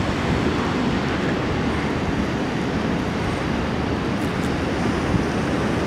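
Fast workboat passing at speed: a steady rush of its bow wave and wake spray mixed with its engine noise, with wind buffeting the microphone.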